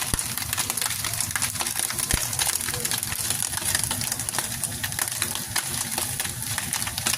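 Bacon sizzling and crackling in a frying pan, a steady hiss with many small pops.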